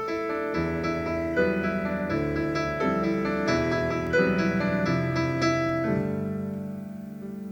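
Solo piano playing a slow, tender passage: a chord struck at the start, then notes and chords moving about every half second, ending on a held chord that slowly fades.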